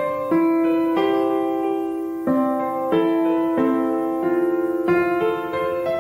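Background music: a slow, gentle piano melody of sustained notes, a new note starting about once a second.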